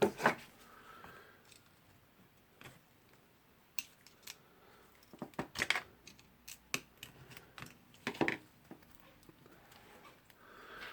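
A screwdriver prying the retaining ring off the tool holder of a Bosch GBH 11 DE rotary hammer: light metal clicks and short scrapes that come at irregular moments, bunched in two clusters around the middle.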